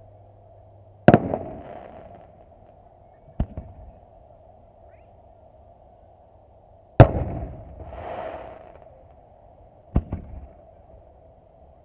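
Aerial fireworks shells going off: four sharp bangs a few seconds apart, the loudest about seven seconds in, each trailing off in a rolling echo.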